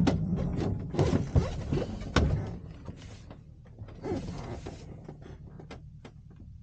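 Irregular knocks and rattles inside a glider's cockpit over a steady low rumble, with the sharpest knock about two seconds in.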